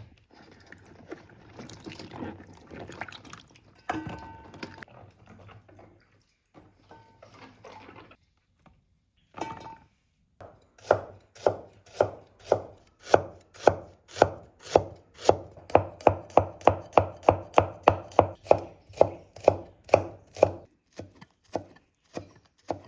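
Kitchen knife chopping on a cutting board, a steady run of strokes about three a second through the second half, most likely chili peppers being cut up. Before it come quieter, irregular handling and rinsing noises.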